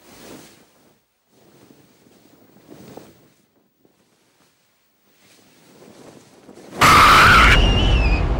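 A few faint, short hushed sounds, then a swell and, near the end, a sudden loud horror jump-scare hit with a shrill, wavering screech on top, leaving a low rumble.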